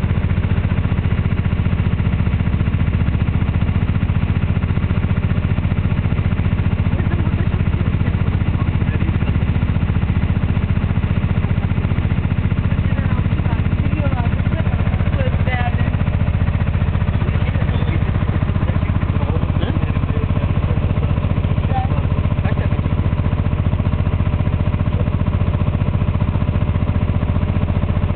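Small river tour boat's engine running steadily while under way, a constant low hum.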